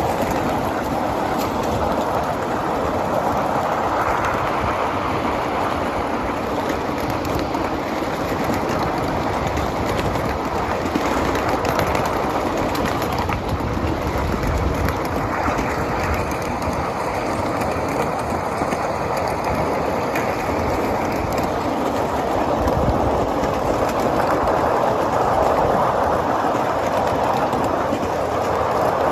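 Cars of a 7.5-inch gauge live steam ride-on train rolling along the track, heard from aboard. The wheels make a steady rumble with scattered light clicks.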